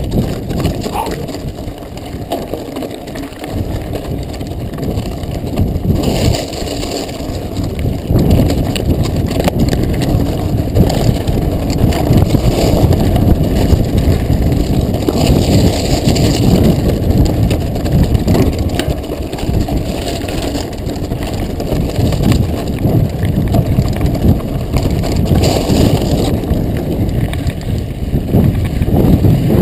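Mountain bike riding fast over loose volcanic cinders and rock, heard from a camera on the bike or rider: a continuous low rumble and crunching of the tyres on the gravel, with the bike rattling over the bumps.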